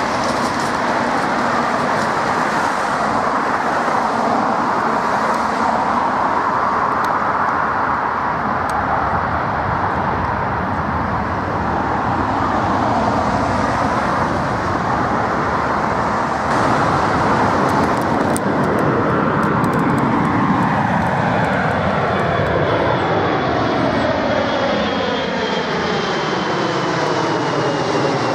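Airbus A340-300's four jet engines at go-around power: a loud, steady rushing roar as the airliner climbs away overhead. In the last ten seconds a sweeping, phasing pattern comes into the noise, with a thin whine that slowly falls in pitch.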